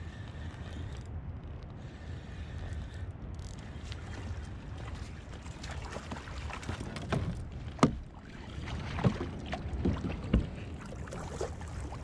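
Wind rumble on the microphone and water against a kayak hull as a hooked coho salmon is reeled in on a spinning reel. In the second half comes a run of sharp knocks and splashes as the fish is brought up alongside the kayak, the loudest three about a second and a half apart.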